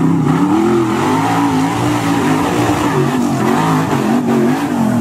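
Off-road buggy's engine revving high, its pitch rising and falling over and over as the spinning tyres fight for grip on a steep dirt climb.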